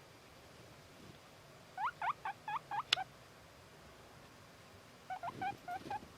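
Young male satin guinea pig whistling: two quick bursts of short, squeaky rising calls, six or seven notes each, with a sharp click near the end of the first burst.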